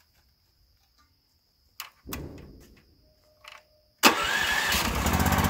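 A few clicks and a short rasp, then about four seconds in the log splitter's Raven 420cc single-cylinder gas engine starts abruptly and settles into steady running.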